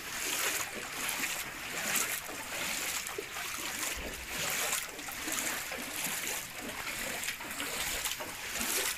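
Footsteps wading through floodwater, each step sloshing and splashing in a regular rhythm.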